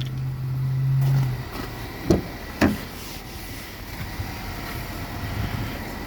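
A steady low hum that stops about a second and a half in, then two sharp knocks about half a second apart, over a low background rumble.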